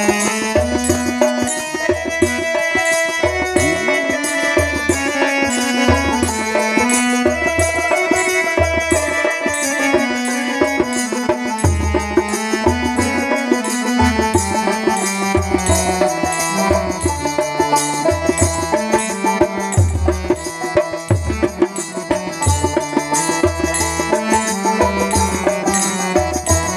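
Instrumental interlude of Bengali Baul folk music: harmonium carrying the melody over a steady beat on a two-headed barrel drum, with small hand cymbals ticking in time and a plucked string instrument.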